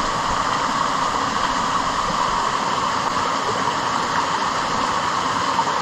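Steady, even rush of fast-flowing water.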